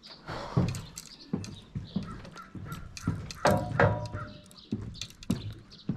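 Footsteps and the knocks of fishing gear being carried as someone climbs down onto a wooden dock. A bird calls a couple of times around the middle.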